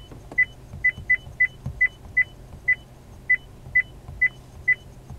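Honda Connect touchscreen giving a short high beep for each key pressed on its on-screen keyboard while an email address is typed: about a dozen identical beeps at an uneven pace of two or three a second.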